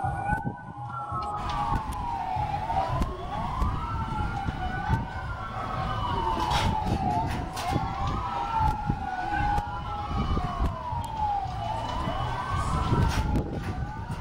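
Two emergency-vehicle sirens wailing, each sliding slowly up and down about every four seconds and out of step with the other, over a steady low rumble.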